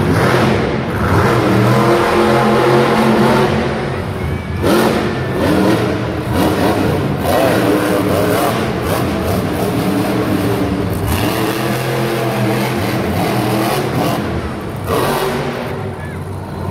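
Monster truck's supercharged V8 engine revving hard, its pitch climbing and falling again and again as the truck drives over the dirt course.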